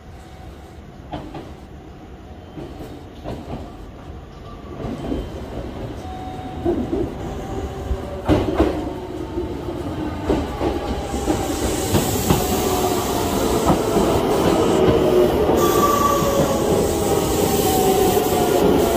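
Kintetsu electric train pulling into the station, growing steadily louder as it nears and passes. Its wheels knock over rail joints and squeal, and a whine falls in pitch as the train slows.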